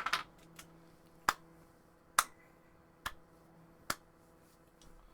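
Sharp clicks at roughly one per second: a quick double click at the start, then four single ones, over a faint steady hum.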